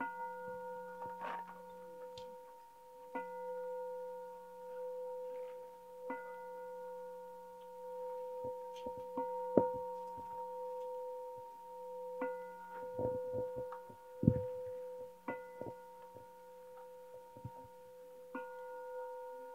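A bowl-shaped bell, like a singing bowl, rings with a steady sustained tone and is struck again about every three seconds, each strike adding brighter overtones. Small clicks and knocks fall in between.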